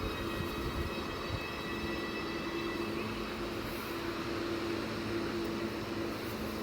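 ES2G Lastochka electric train's traction and auxiliary equipment giving a steady electrical hum, with a high whine of several tones that fades away about halfway through.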